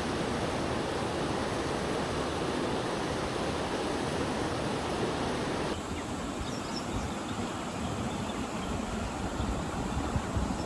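Steady rush of a flowing mountain stream. About halfway through the sound changes abruptly and becomes softer in its higher range.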